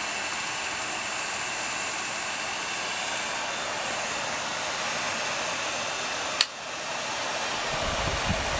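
DeJur 750 film projector running with its lamp lit, its cooling blower and mechanism making a steady airy hiss. A sharp click comes about six and a half seconds in, and low bumps follow near the end.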